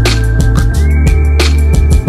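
Background music with a steady drum beat and deep bass, and a held high note that slides up a little about a second in.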